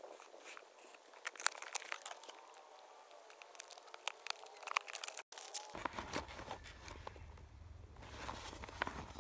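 Cardboard packaging being opened by hand: packing tape cut and torn, flaps and card rustling and crinkling, with many short sharp scrapes and clicks.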